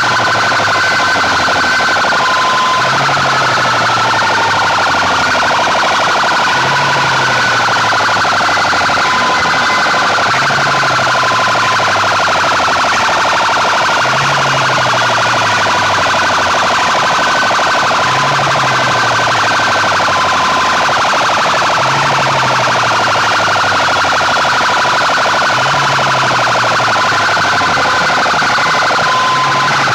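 Banks of horn loudspeakers blaring a constant, very loud electronic siren-type tone, as played in a sound-system competition. Under it a low falling sweep repeats about every four seconds.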